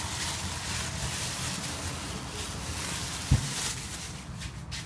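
Plastic bag crinkling and rustling as the used oil filter is drawn out of the engine bay wrapped inside it. A single short low thump comes about three seconds in.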